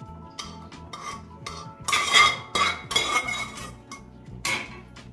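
A perforated steel ladle scraping and clinking against a pressure cooker pot and a steel kadhai as boiled grated carrots are scooped out and tipped in. There are several strokes, the loudest about two to three seconds in and another near the end.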